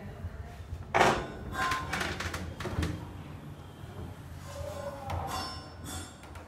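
Sliding wardrobe door being worked on an ebco Hi Slide Topper 16-46 aluminium top track: the rollers rumble along the rail, with a sharp knock about a second in.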